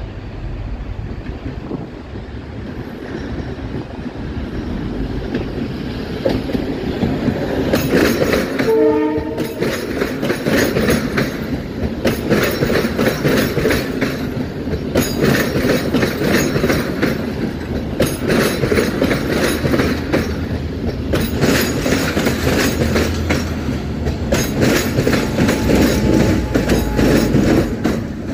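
Passenger train approaching and rolling past close by, its rumble building over the first eight seconds. A short train horn blast sounds about nine seconds in. After it, the coaches' wheels clickety-clack over the rail joints in groups about every three seconds, one group per passing coach.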